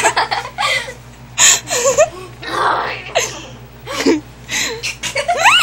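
Girls' voices laughing and squealing in short breathy bursts, several a second apart, with no clear words.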